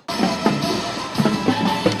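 Music with drums and a steady beat, starting abruptly right after a brief fade-out at the very start.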